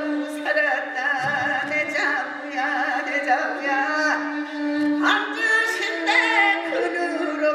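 Korean traditional ritual music: ornamented singing with a heavy, wavering vibrato over one steady held drone note.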